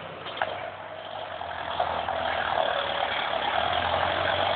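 John Deere 5820 tractor's four-cylinder diesel engine running, growing louder from about a second in, with a single short click near the start.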